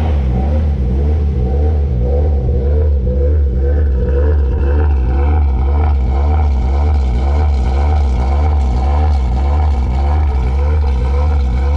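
Honda B18C 1.8-litre DOHC VTEC four-cylinder with Toda individual throttle bodies, idling steadily on its first start-up after the build. From about halfway through it is heard close to the exhaust tip.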